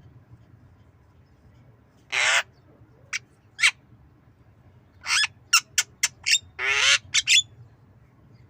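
Javan myna giving harsh, rasping calls and short sharp clicks in irregular bursts: one longer call about two seconds in, a few single clicks, then a quick run of calls from about five to seven and a half seconds in.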